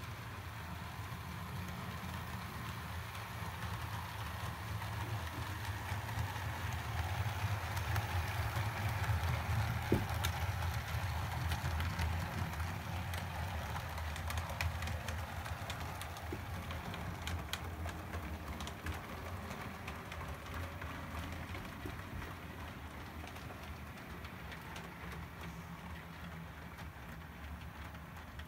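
Model train running along the layout's track: a steady electric motor hum and wheel rumble with many faint clicks. It grows louder to a peak about ten seconds in, then slowly fades as the train moves off.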